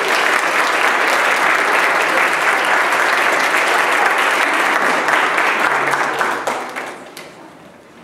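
Congregation applauding, steady clapping that dies away near the end.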